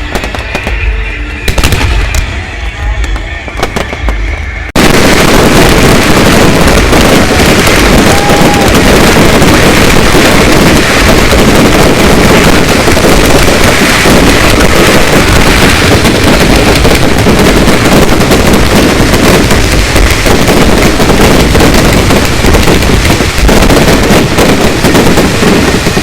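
Aerial fireworks going off: separate bangs at first, then about five seconds in a sudden, dense, continuous barrage of explosions, very loud.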